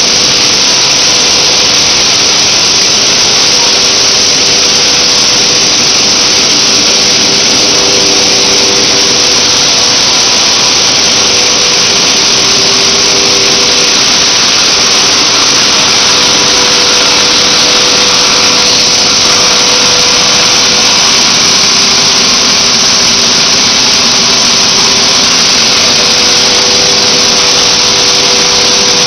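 PET bottle recycling and washing line machinery running: a loud, steady rushing din with a constant motor hum under it.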